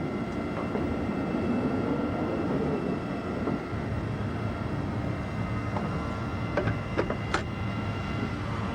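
A warship's engines and machinery running steadily, with a few steady whining tones over a low rumble. A few sharp clicks come near the end.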